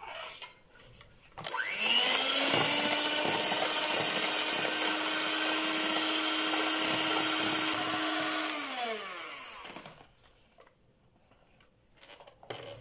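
Electric hand mixer switched on about a second and a half in, its motor quickly rising to a steady whine as the beaters whisk cake batter in a bowl, then winding down and stopping about ten seconds in.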